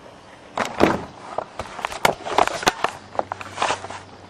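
Handling noise: an irregular run of sharp crackles, taps and knocks lasting about three seconds.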